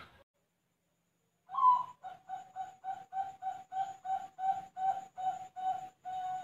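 Zebra dove (perkutut, Bangkok type) singing: after a silence of about a second and a half, one rising opening note, then a quick even run of about fifteen short coos, three to four a second.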